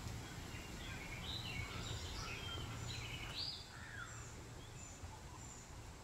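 Wild songbirds singing: a cluster of short warbling and chirping phrases in the first few seconds, then a few thin high notes, over a steady low background rumble.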